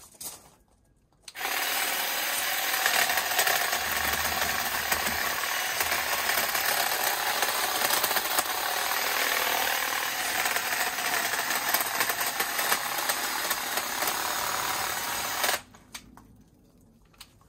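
Battery-powered GTech HT50 hedge trimmer running, its reciprocating blades cutting through a leafy conifer hedge with a steady buzz. It starts about a second in and stops suddenly near the end.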